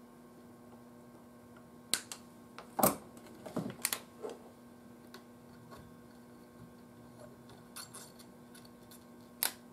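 Scattered sharp clicks and small knocks of hand tools working at the solder connections of a tube radio chassis, a few in close succession about three to four seconds in, over a faint steady hum.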